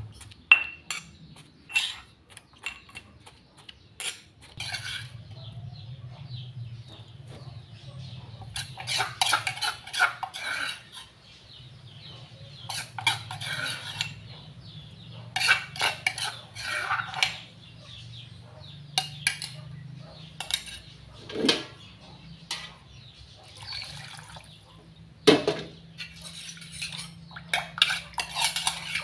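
Metal spoon and ladle scraping and clinking against a stone mortar as curry paste is scooped out, with sharp knocks from the stone pestle in the first few seconds. A low steady hum runs underneath from about five seconds in.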